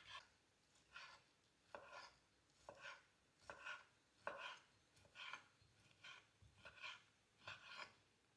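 Knife cutting food on a cutting board, slicing vegetables or sausage in faint, even strokes a little more than once a second.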